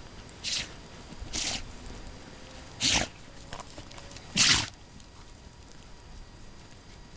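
Ariégeois hounds snorting and blowing through the nose as they work a scent: four short breathy bursts about a second or more apart, the last two loudest.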